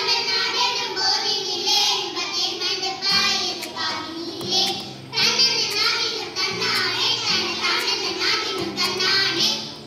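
A group of children singing a Tamil song together. About three seconds in, low held accompaniment notes come in under the voices and change pitch in steps.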